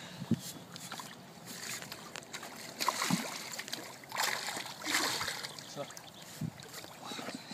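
River water sloshing and splashing around hands, a landing net and a salmon held in the shallows, in short irregular bursts, strongest about three and five seconds in.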